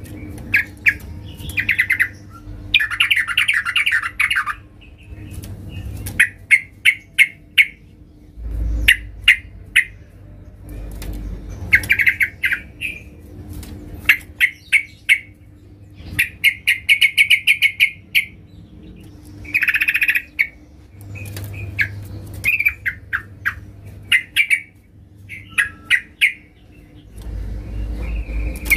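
Female yellow-vented bulbul (trucukan) calling to males: repeated short bursts of rapid chattering notes with brief pauses between them.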